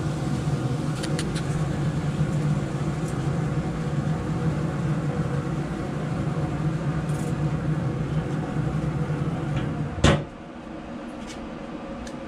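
Steady hum from a Traeger pellet grill running with its lid open, a few light clicks of tongs, then the steel lid shut with one loud bang about ten seconds in, after which the hum is much quieter.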